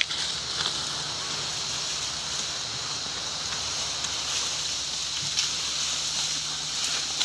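Steady outdoor forest ambience: an even high-pitched hiss with a faint low hum, a sharp click right at the start and a few faint ticks and rustles.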